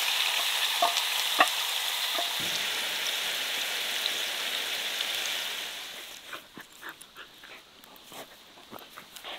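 Minced meat sizzling in a hot cast-iron skillet, stirred with a wooden spoon that knocks and scrapes a few times. About six seconds in the sizzle gives way to quieter rustling and small clicks of dogs tussling in grass.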